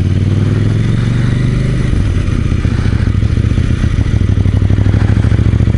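KTM 790 Duke's parallel-twin engine running steadily at low revs while the bike is ridden, a low even thrum with a fast pulse.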